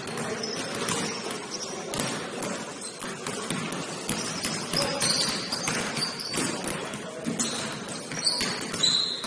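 Basketball game on an indoor court: the ball bouncing and sneakers squeaking, with the loudest bounces near the end.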